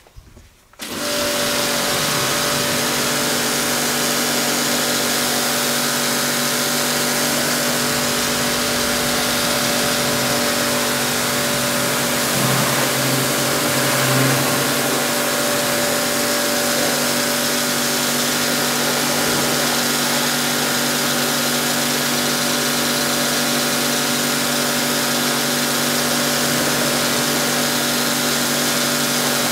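Ruris PRO Power Jet 1900 pressure washer, its 2500 W induction motor and pump starting abruptly about a second in and then running steadily with a constant hum. The hiss of water spraying from its helical jet nozzle runs along with it.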